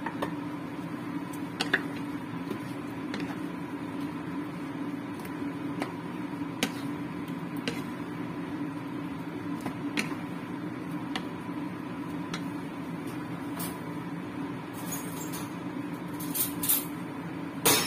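Wooden spatula stirring a simmering curry in a nonstick wok, with scattered light knocks and clinks against the pan and a few more near the end, over a steady low hum.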